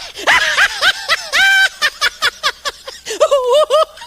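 Laughter in quick repeated bursts, with one short held high note about a second and a half in.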